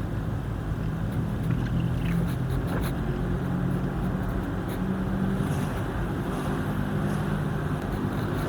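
A motor running steadily with a low, even hum, over a wash of noise.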